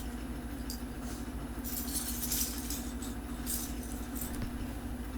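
Loose plastic Lego pieces rattling and clinking in short bursts, as of someone rummaging through them for a part, over a steady low hum.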